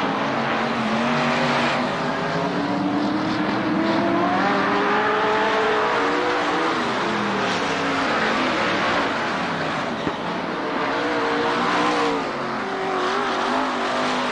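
Several late model race cars running at speed on an oval, their V8 engines overlapping and rising and falling in pitch as they rev down the straights and lift for the turns.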